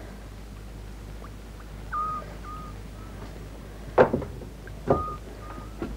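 A short high whistle-like call, a rising note followed by one or two shorter notes, repeating about every three seconds, with two sharp knocks about four and five seconds in.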